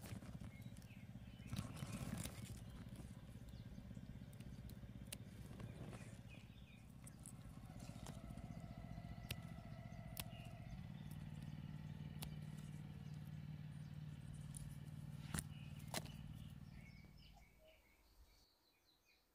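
Scissors snipping pea pods off the vine: a few sharp clicks, two of them close together near the end. Under them runs a steady low machine hum with faint bird chirps, and it all falls away about a second and a half before the end.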